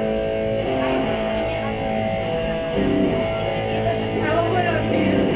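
Live electric guitar playing held chords that change every second or two: the opening of a metal song, before the drums come in.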